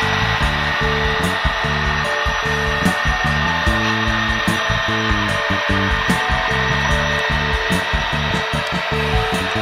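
Background music: a bass line changing notes quickly under a steady, busy beat, with a dense buzzing texture over it.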